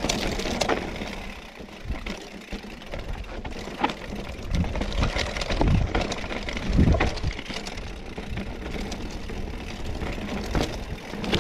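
Scott Spark RC mountain bike riding down a rough, rocky trail: tyres crunching over stones and gravel, with frequent irregular knocks and rattles from the bike. Wind rumbles on the microphone underneath.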